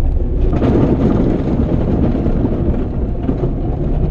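Small car driving, heard from inside the cabin: a steady engine and road rumble, with a rougher rush of tyre noise swelling about half a second in.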